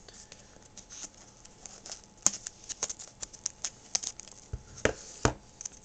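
Handling noise from a cardboard box and plastic packaging: irregular clicks, taps and light crinkling as the box insert and the wrapped player are handled, with a few heavier knocks near the end.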